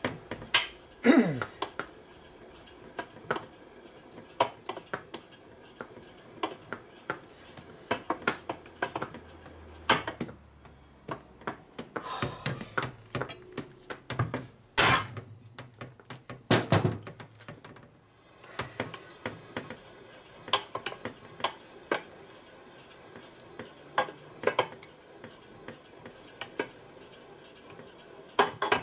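Metal clicks and clinks of a steel shaft being worked back and forth by hand in a bushing of a Harley-Davidson Sportster's aluminium crankcase, lapping it in with grinding compound. Several louder sharp knocks stand out, a few of them hammer taps on the case about midway.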